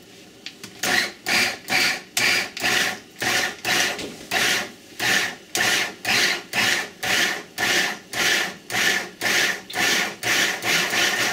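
Small food chopper pulsed over and over in short, even bursts, about two a second, its blades chopping raw shrimp into a coarse mix of small and large pieces.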